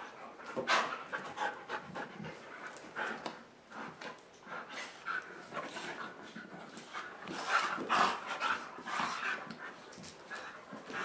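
A German Shepherd and a Siberian Husky panting in irregular bursts as they play-wrestle.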